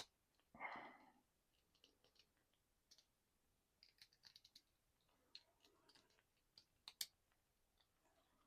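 Faint, scattered clicks of the small plastic parts of an S.H. MonsterArts Skar King action figure's beast glove accessory being handled and popped on and off, the loudest about seven seconds in.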